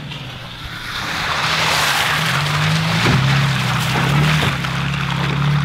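A Toyota Tacoma TRD Pro pickup drives slowly past through wet, muddy ruts. Its engine hum grows as it comes close, and its tyres splash and churn through the mud, loudest in the middle, with a couple of short knocks.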